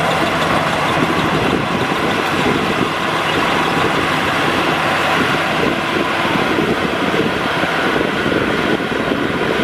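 Maximo NDR 102 rice combine harvester running steadily at work, its engine and threshing machinery making a loud, continuous mechanical noise.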